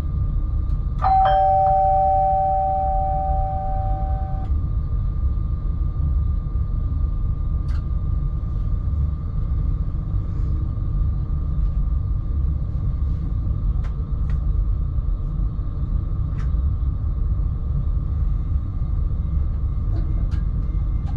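Alstom X40 electric multiple unit running along the line: a steady low rumble with a faint constant whine and a few light clicks. About a second in, a two-note tone starts sharply, holds for about three seconds and cuts off.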